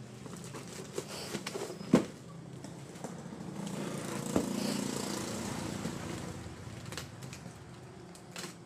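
A woven plastic sack rustling as it is pulled off a taped cardboard box, with a sharp knock of the box against the concrete floor about two seconds in and a softer one a couple of seconds later. A steady low motor hum runs underneath.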